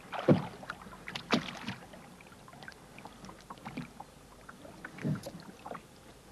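A fishing net and a fish being handled in a small boat: scattered small clicks and knocks, with louder thumps about a third of a second in, just after one second and about five seconds in.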